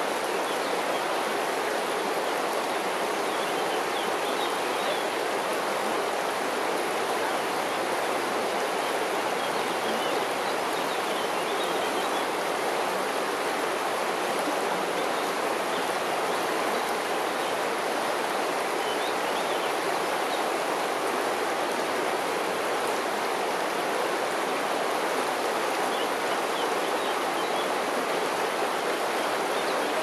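Shallow river running over a stony bed: a steady rushing and babbling of water through the riffles, even in level throughout.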